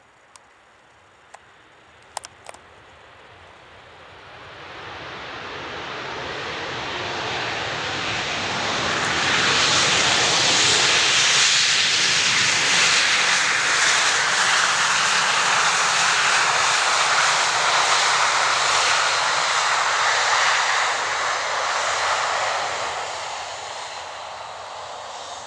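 Boeing 737-900ER's CFM56-7B turbofan engines on the landing rollout: the jet noise builds over several seconds, holds loud and steady for about twelve seconds, then fades near the end.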